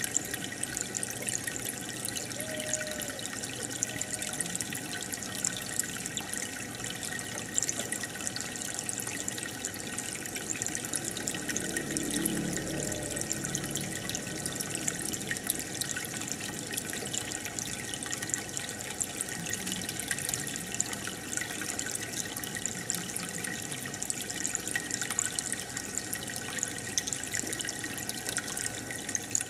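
Aquarium air bubbler running, a steady stream of bubbles giving a continuous fizzy bubbling and trickling of water.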